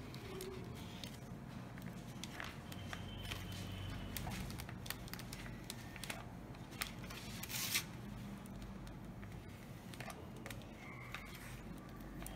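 Depron foam parts being handled and hot-glued: scattered small clicks and rubbing as the glue gun is worked along the foam seam, with one louder brief scrape a little past halfway, over a low steady hum.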